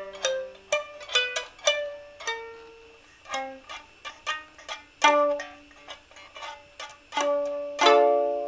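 Solo improvised instrumental music: single notes and chords struck or plucked sharply, each ringing and fading, played at an irregular, free pace.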